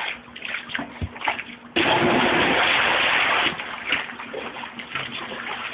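A body hitting pool water: a sudden loud splash that goes on for about a second and a half and then drops back to light sloshing and lapping.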